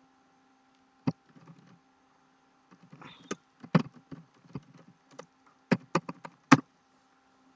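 Scattered clicks and taps of a computer keyboard and mouse, a cluster about three seconds in and several sharp clicks near the end, over a faint steady hum.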